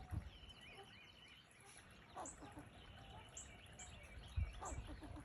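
A squirrel gives two short, faint barks, about two and a half seconds apart, while small birds chirp in the background.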